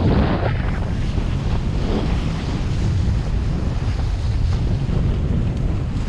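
Wind buffeting the action camera's microphone as a kiteboard planes over choppy water, with water rushing and spraying off the board. There is a louder surge of spray right at the start.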